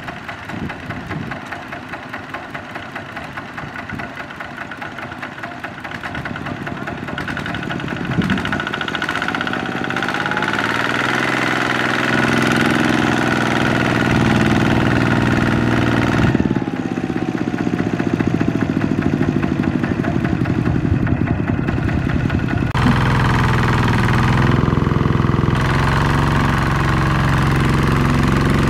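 Walking tractor's single-cylinder diesel engine running under load while hauling a loaded trailer, its pitch shifting and its sound growing louder over the first dozen seconds.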